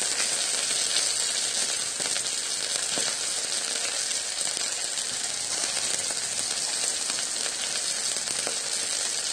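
Wild boar meat and fat sizzling steadily on a hot stone griddle.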